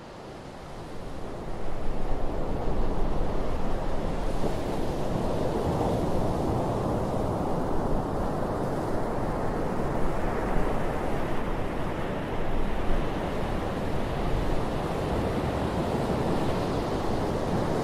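Low sea waves breaking and foam washing up over a sandy beach: a steady, even rush of surf that fades in over the first couple of seconds.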